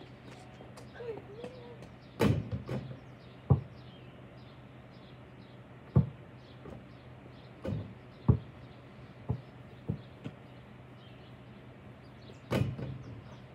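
A basketball being shot and bounced: about eight sharp thuds at uneven intervals, the loudest about two seconds in with a short rattle after it, and another strong one near the end.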